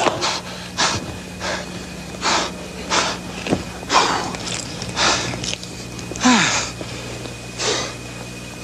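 A man breathing hard, out of breath from dancing: about ten loud, wheezy breaths that come further apart as he slows down, with a sigh falling in pitch about six seconds in.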